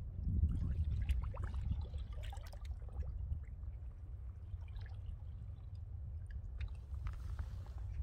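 Gentle seawater lapping and gurgling among shore rocks, with small trickles and drips, over a low rumble that is strongest for the first second and a half.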